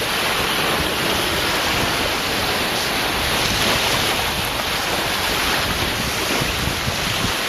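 Sea surf: a steady rushing of waves.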